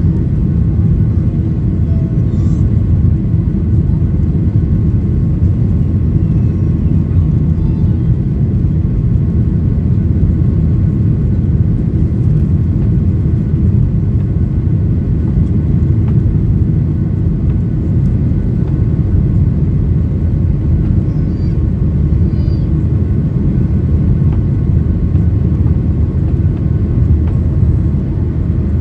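Steady cabin roar of a Boeing 737-800's CFM56-7B jet engines and rushing airflow during climb after takeoff, heard from a window seat inside the cabin, with a faint steady whine above the low rumble.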